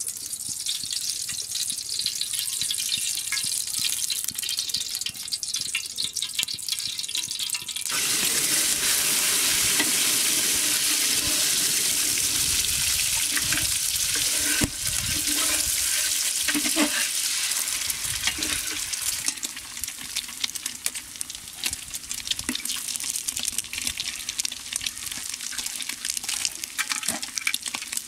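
Cooking oil hissing in a large aluminium pot. From about eight seconds in, eggs fried in the oil make a loud, steady sizzle, which eases off over the last third.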